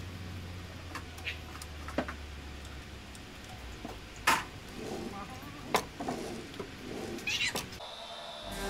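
Wooden sliding cabinet door being worked into its tracks, giving scattered knocks and taps against the plywood frame, the loudest about halfway through. A few short squeaks come a little after that.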